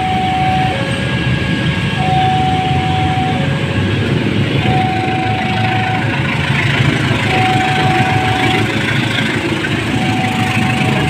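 Level-crossing warning alarm sounding two tones in turn, high then low, each held about a second and a half, over the low rumble of a KAI diesel-electric locomotive approaching and drawing its passenger train past; the rumble and rail noise grow louder in the second half.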